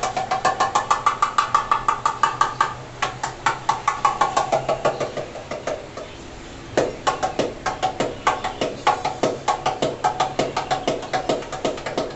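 Darbuka (goblet drum) solo: fast, rhythmic strokes at several a second, with a short pause about six seconds in before a strong stroke restarts the rhythm.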